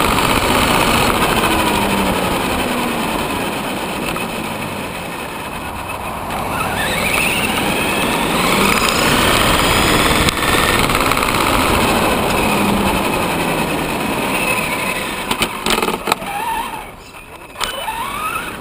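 Traxxas Summit RC monster truck's electric motor and geartrain whining as it drives over asphalt, with the pitch rising and falling as the throttle changes, over steady tyre and road noise. Near the end there are a few sharp clicks and the noise drops away as the truck slows.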